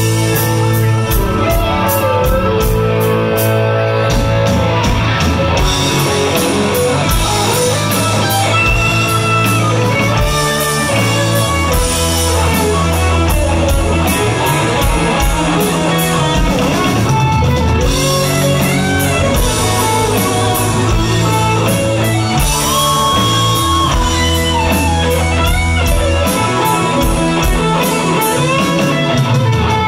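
Live rock band playing an instrumental passage: electric guitar, bass and drum kit, with a lead line of held and bending notes over a steady bass line.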